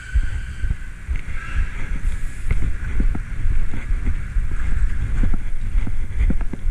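Bicycle being wheeled from the platform into a SkyTrain car: low rumble of movement and handling on the camera's microphone, with a string of clicks and knocks in the second half. A steady high whine fades out in the first second.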